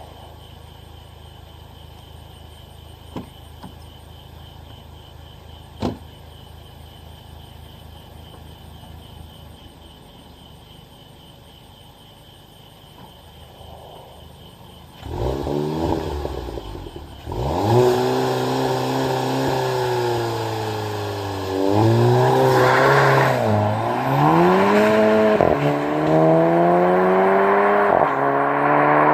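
Two sharp clicks a few seconds apart. Then the Mk7 GTI's engine comes in loud and the car accelerates, the revs climbing and dropping at several gear changes made in the gearbox's manual mode.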